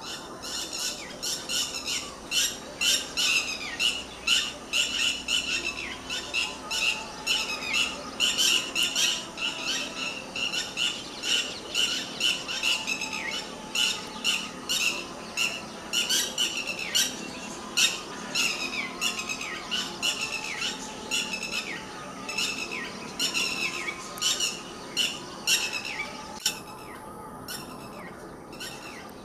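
Red-wattled lapwing giving its shrill alarm calls in a rapid, repeated series, each call dropping in pitch. These are mobbing calls aimed at the dogs. The calls thin out near the end.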